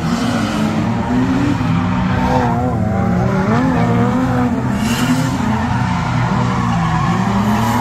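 Drift cars being held at high revs through a corner, their engine notes wavering up and down as the drivers work the throttle, over a continuous tyre squeal as the cars slide sideways.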